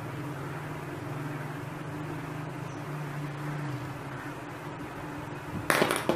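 A steady low mechanical hum, with a brief loud burst of handling noise about a second before the end.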